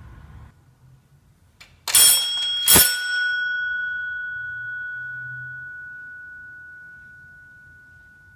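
Doorbell chime: two metallic bell strikes under a second apart, the second ringing on in one clear tone that fades slowly over several seconds.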